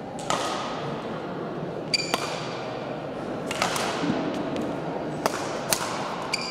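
Badminton rackets striking shuttlecocks: a series of sharp, irregularly spaced hits, a few of them with a short ringing ping, echoing in a large hall over a steady murmur of background noise.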